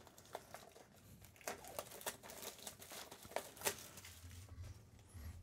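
Faint crinkling and rustling of a cardboard prerelease kit box and its packaging being handled, with a few short sharp clicks and taps scattered through.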